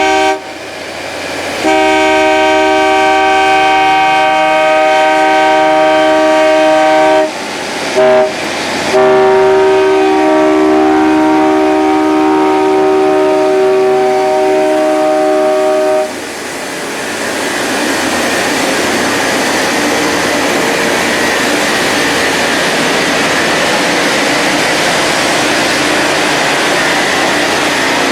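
Rail grinding train's multi-chime horn sounding the grade-crossing signal: long, long, a short toot, long. After the last blast ends, a loud steady rushing noise of the train passing.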